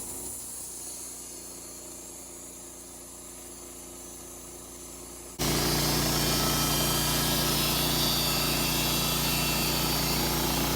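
Wood-Mizer LT15 band sawmill's engine running steadily. About five seconds in, the sound jumps suddenly to a much louder, steady running.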